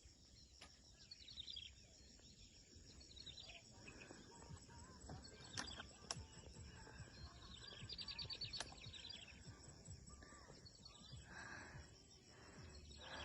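Faint outdoor ambience with short, high chirping trills that come a few times, and a few sharp clicks.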